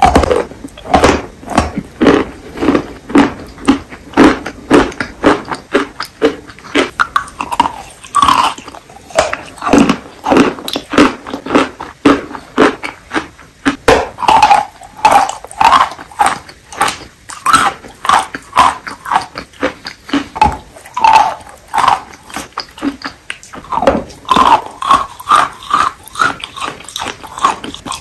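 Close-miked chewing and biting of wet, creamy clay chalk: wet crunching and squelching mouth sounds repeating about twice a second.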